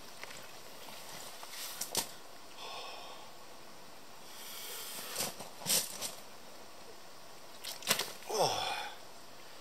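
A few sharp slaps and knocks, the loudest near the end as a big mirror carp thrashes in the angler's hands over the unhooking mat, followed by a short falling vocal 'whoa' from the angler.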